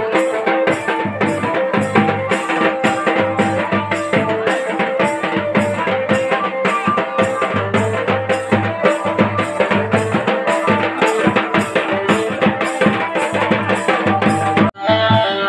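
Adivasi band music with a steady drum beat under a repeating melody. Near the end it drops out for an instant and comes back duller.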